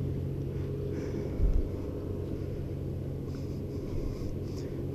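Steady low rumble of road traffic on the bridge overhead, with a brief low thump about a second and a half in.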